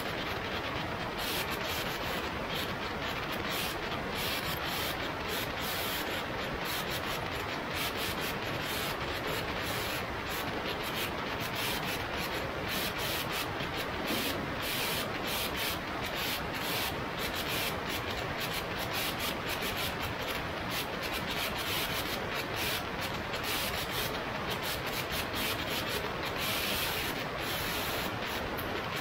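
Steady rush of wind buffeting the microphone of a camera mounted outside a light aircraft in flight.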